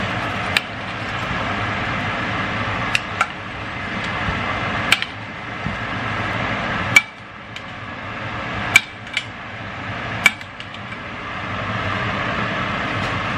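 Steak sizzling steadily in hot butter in a stainless steel skillet. A metal spoon clinks sharply against the pan about eight times as the butter is spooned over the meat to baste it.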